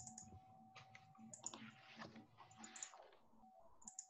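Faint computer keyboard typing: irregular clicks, a few scattered across the seconds.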